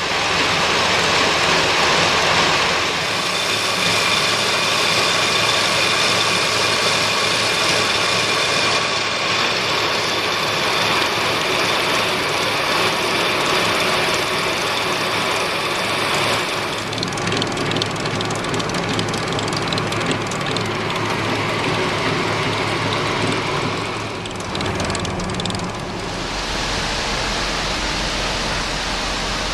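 Engine-driven elevator conveyor running steadily as it loads harvested cranberries into a truck. The sound shifts character about two thirds of the way through and again near the end.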